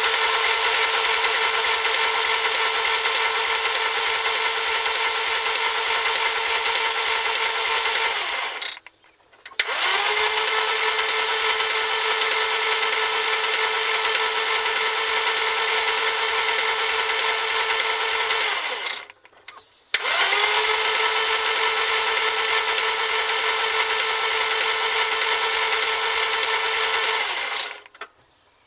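Starter motor of a 1996 Audi A4's 2.8-litre V6 cranking three times, each attempt about eight or nine seconds long, with a steady whine that rises as it spins up at the start of each. The engine turns over but never catches: a crank-but-no-start fault.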